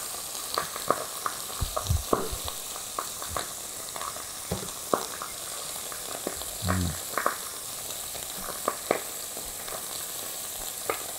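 Pieces of gurnard, skate and small scorpionfish, bones and all, sizzling steadily in olive oil in a wide pan as they slowly brown. Over it, a scatter of short sharp clicks and taps from a knife on the cutting board as a cuttlefish head is cut and cleaned.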